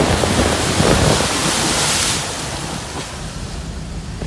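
Floodwater rushing and splashing around a Land Rover Discovery Td5 as it wades through, with the five-cylinder turbodiesel engine running low underneath. The loud rush of water drops to a quieter wash about two seconds in.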